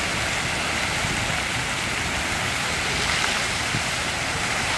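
Fountain water jets spraying and splashing back into the pool: a steady, even rush of falling water.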